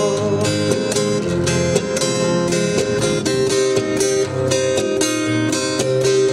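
Instrumental break in a Mandarin pop ballad, with no singing: steady strummed acoustic guitar under a held melody line.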